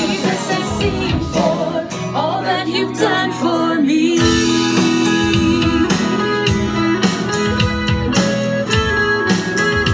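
Worship song recording with full band: drums, guitar and bass under held sung notes.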